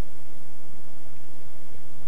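Steady hiss with a low hum underneath, the background noise of an old videotape recording, with no distinct event standing out.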